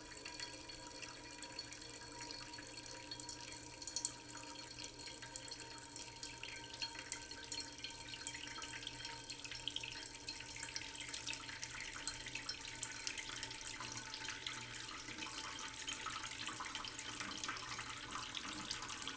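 Cooking pot slowly filling under a running tap in a sink: a thin stream of water splashing steadily into the water already in the pot, with small irregular splashes and a couple of sharper ones, about four and twelve seconds in.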